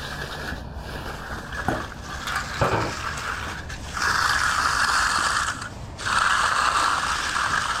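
A steel concrete finishing tool scraping over fresh wet concrete in long strokes. The two loudest strokes start about four and six seconds in.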